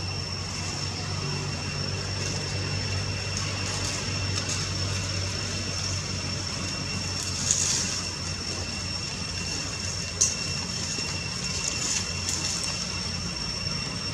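Steady low engine-like hum with a thin, steady high-pitched whine over it; a couple of brief faint clicks partway through.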